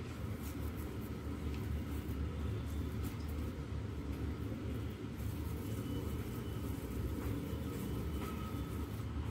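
A steady low rumble of background noise, with a few faint clicks.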